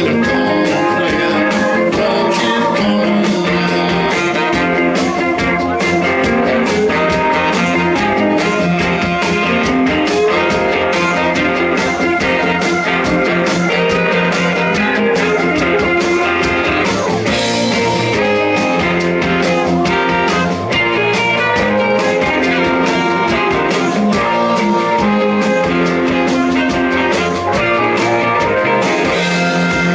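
Live blues-rock band playing loudly, electric guitar over a steady drum beat.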